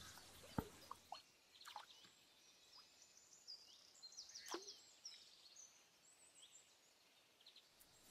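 Near silence: a few faint plops from a propeller-tailed topwater quacker lure on the retrieve, with small birds chirping faintly.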